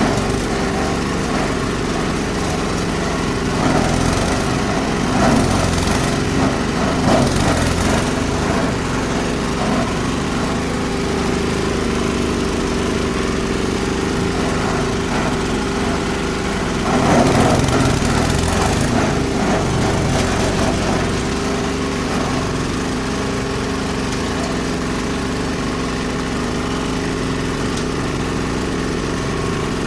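Chopper-grinder machine driven by an 8 HP diesel engine, running steadily, with louder grinding surges about four seconds in and again about seventeen seconds in as material is fed through the blades.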